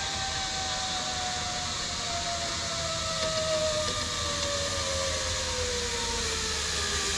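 Zip line trolley pulleys running on the cable: a whine that slowly falls in pitch as the incoming rider slows toward the platform, over a steady hiss.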